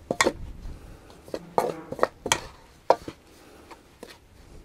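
Fork stirring pie dough in an enamelware bowl, clinking and scraping against the bowl in a few sharp, irregular clicks.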